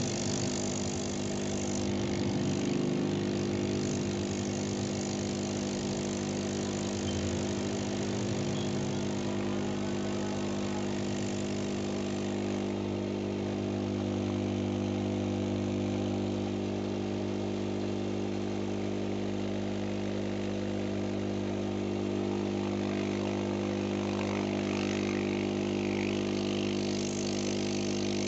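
Homemade hot-air rework station running, its blower giving a steady hum under an even hiss of air.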